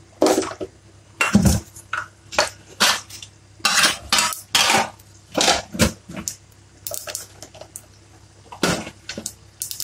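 Mustard and fenugreek seeds popping in hot oil in a stainless-steel pot: irregular short, sharp pops, about two a second and sometimes in quick clusters. The popping is the sign that the oil is hot enough and the tempering is done.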